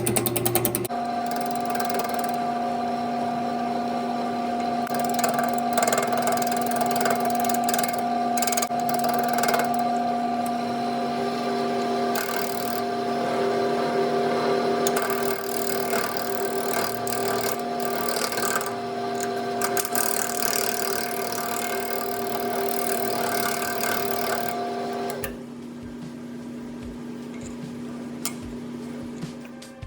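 Wood lathe running steadily with its motor hum, while a turning tool scrapes and cuts the spinning wooden block in uneven, scratchy passes. About 25 seconds in the cutting drops away and the lathe keeps humming more quietly.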